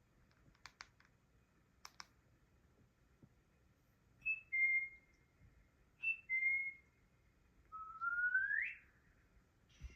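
A few soft clicks, then three clear whistles: two short two-note whistles, each a brief higher note stepping down to a held lower one, and a longer whistle rising steadily in pitch.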